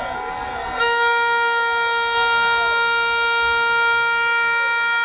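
A horn blown in one long, steady blast, a single unwavering pitch rich in overtones, starting a little under a second in, over fainter wavering horn tones and crowd noise.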